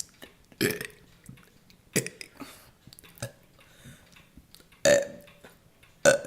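A person burping several times in a row, short separate burps with the loudest about half a second in, about five seconds in and near the end.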